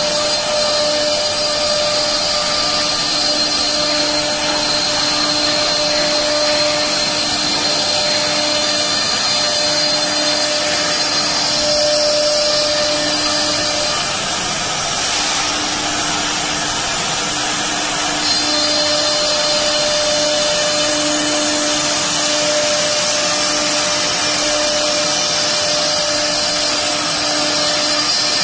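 Three-spindle CNC wood router cutting a wooden door panel: the spindle motors give a steady high whine over the noise of the bits cutting wood. The high whine fades for a few seconds midway and comes back.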